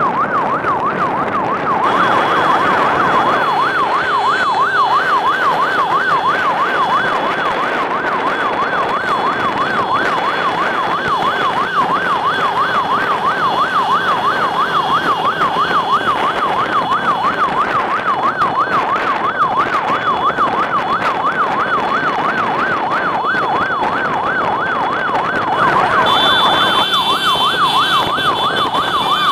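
A siren in a fast warble, its pitch swinging up and down several times a second without a break, over the steady noise of a convoy of motorcycle engines.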